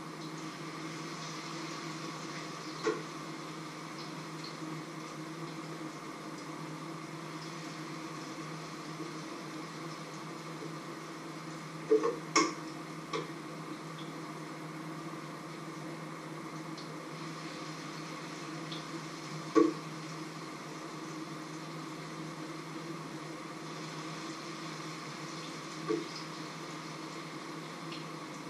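A metal utensil clinks against a pot and frying pan a handful of times, the loudest knocks near the middle. Underneath runs a steady hum and hiss of food cooking on an electric stove.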